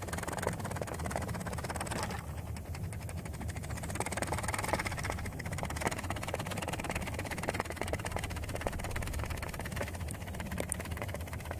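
3D-printed pop-pop boat's steam engine running: its thin metal diaphragm keeps up a rapid, steady stream of clicks as the boat putts along.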